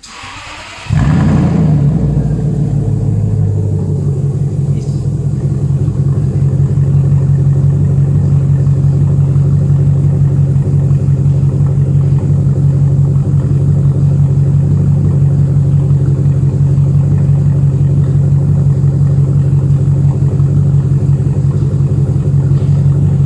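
1998 Jaguar XKR's supercharged 4.0-litre V8 starting up about a second in, then idling steadily through its upgraded aftermarket exhaust.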